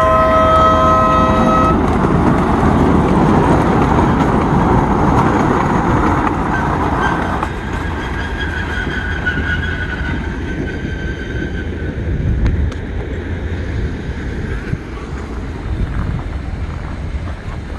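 Horn of a miniature ride-on diesel-style train sounding a steady multi-note chord that stops about two seconds in, then the train's wheels and cars rumbling past on the track and fading as it moves away. A thin high-pitched whine is heard for a few seconds in the middle.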